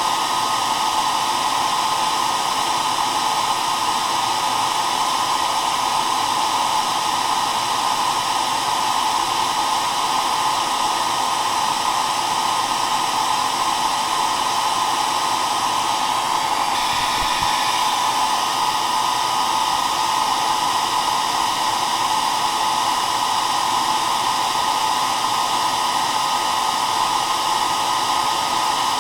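Hair dryer running continuously at a constant setting: an even rush of blown air with a faint steady whine through it.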